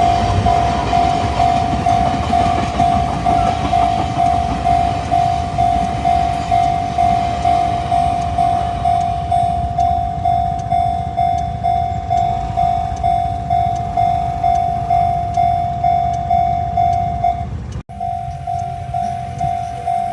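Level-crossing warning bell ringing in an even, repeated single tone, a little under two strikes a second, while a train rumbles past. The sound cuts out for an instant near the end, and the bell then carries on.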